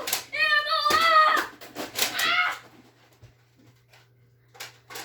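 High-pitched wordless vocal cries from a child, two or three squealing calls in the first couple of seconds, then quiet with a few sharp clicks near the end.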